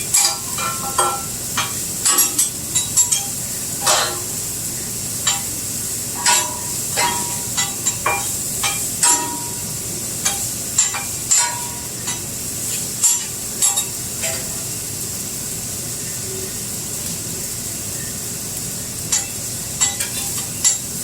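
Food sizzling steadily on a hot flat-top grill, with metal spatulas scraping and clinking on the steel griddle in repeated clusters, some clinks ringing briefly. The clinking thins out for a few seconds about three-quarters of the way through.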